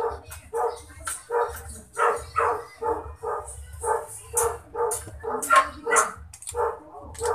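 A dog barking over and over at a steady pace, about two to three barks a second.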